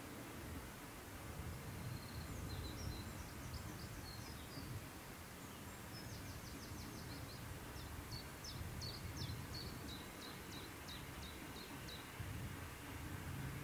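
A small songbird singing phrases of quick, high, repeated chirping notes, over a low, steady rumbling background noise.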